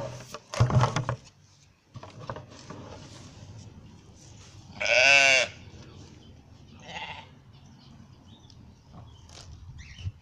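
Sheep bleating: one loud, wavering bleat about five seconds in and a fainter one about two seconds later. There is another loud, short sound just under a second in.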